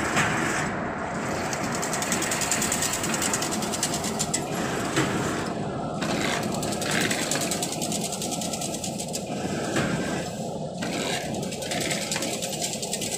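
Automatic chain link fence making machine running, a steady, rapid mechanical clatter of its wire-weaving mechanism as it forms the diamond mesh.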